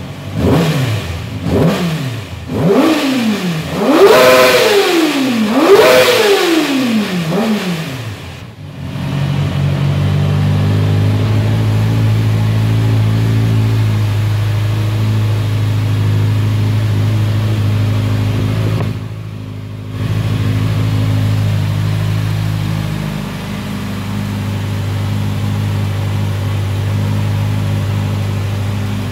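Kawasaki ZX-6R 600cc inline-four sport-bike engine revved in a run of quick throttle blips, each rising sharply and falling back, then settling into a steady idle for the rest of the time.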